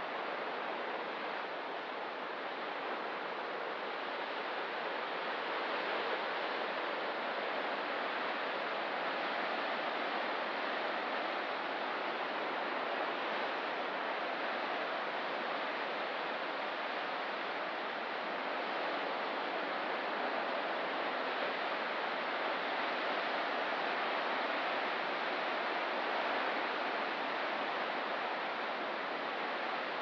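Ocean surf, a steady even wash of waves with no single breaker standing out.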